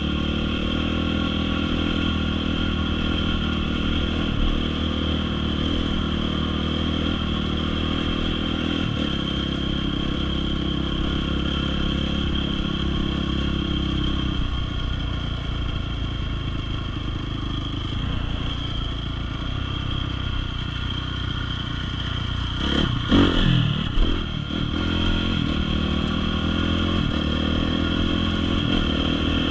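Off-road dirt bike engine running continuously on a trail ride. Its note eases off about halfway through, and a short, louder burst of revving with rattling comes about three quarters of the way in.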